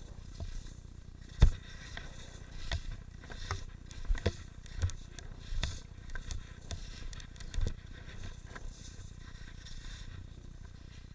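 Skis scraping over packed mogul snow, picked up by a helmet-mounted camera. Irregular thumps and knocks come as the skier hits and absorbs the bumps, the loudest about one and a half seconds in, over a steady low rumble.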